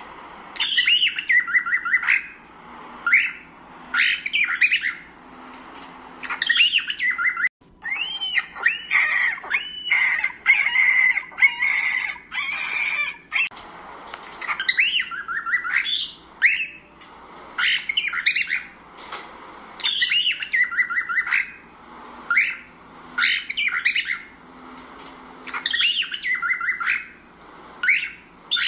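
Pet cockatiels calling: squawking calls that rise and fall, in bursts every second or two, with a longer run of dense chattering between about eight and thirteen seconds in.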